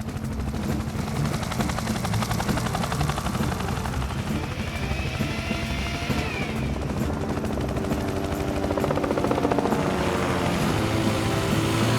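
Helicopter rotor blades chopping steadily, a cartoon helicopter sound effect, with music playing under it.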